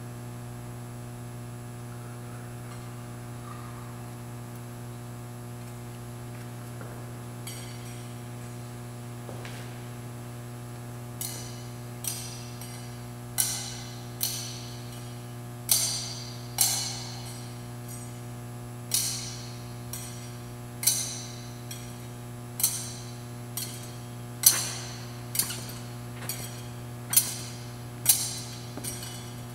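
Metal thurible swung on its chains, clinking in sharp, briefly ringing chinks about once a second from about eleven seconds in, as the altar and offerings are incensed.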